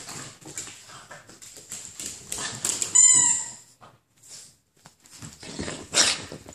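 A dog toy squeaks once, a single high squeak about halfway through, amid the knocks and scuffles of a small dog at play.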